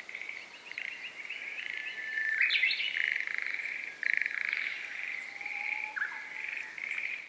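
Animal calls: a run of buzzy trills at one high pitch, several in a row with short breaks, with a couple of brief rising chirps mixed in. They cut off abruptly at the end.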